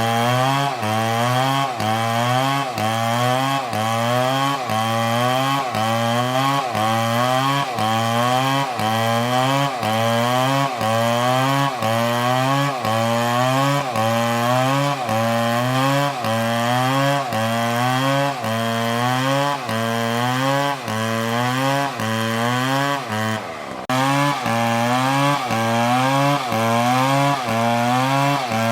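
Stihl MS720 two-stroke chainsaw cutting into wood under load, its engine pitch dipping and recovering in an even rhythm about one and a half times a second as the bar works through the cut. About 23 seconds in the engine bogs down deeply for a moment, then picks up again.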